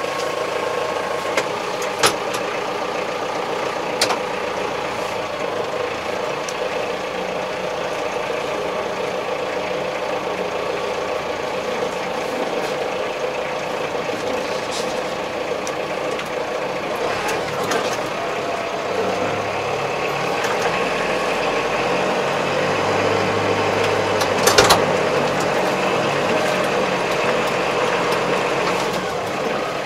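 Kubota MZ755 tractor's diesel engine running as the tractor drives off, heard from inside its closed cab. The engine grows fuller and louder about two-thirds of the way through, with a few sharp clicks along the way.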